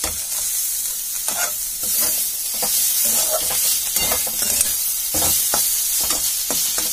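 Flat metal spatula stirring and scraping a grated radish and pea mixture around a kadai, in short irregular strokes, over a steady sizzle of the dish frying in mustard oil.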